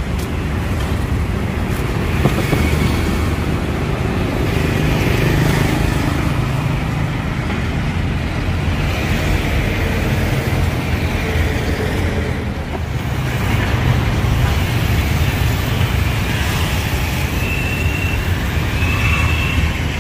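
Street traffic: motorbike and car engines running past in a steady low rumble, with three short high-pitched beeps near the end.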